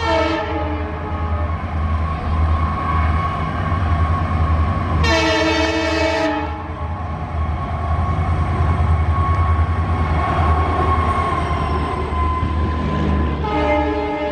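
WDG-4 diesel locomotive (EMD 16-cylinder two-stroke) running through at speed, sounding its air horn: a blast fading out just after the start, a full blast of just over a second about five seconds in, and another starting near the end. Between the blasts the engine's steady low drone and the rumble of the train fill in as the locomotive comes up and its coaches run past.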